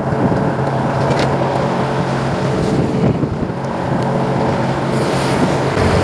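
A fishing boat's engine running steadily.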